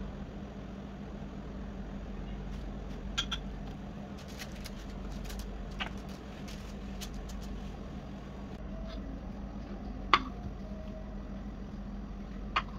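A few light clicks and taps of kitchenware, a spoon against a glass cup and dishes on the counter, over a steady low hum; the loudest tap comes about ten seconds in.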